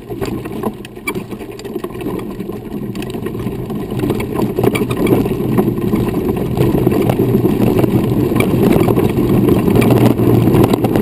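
Tyres of a custom-built off-road running wheelchair rolling over a dirt and gravel forest road: a steady rumble with fine crackle that grows louder over the first few seconds as the chair picks up speed, then holds.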